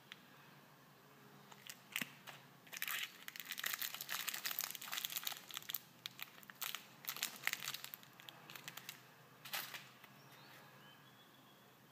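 Small clear plastic candy packet crinkling as it is handled, in irregular crackly bursts from about three to nine seconds in, with a few sharp clicks before and one last crinkle near the end.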